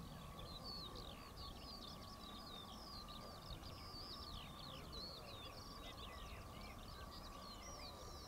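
Many small birds chirping and singing in quick, sweeping notes over a faint steady whine and low rumble from the distant Boeing B-52's Pratt & Whitney TF33 jet engines.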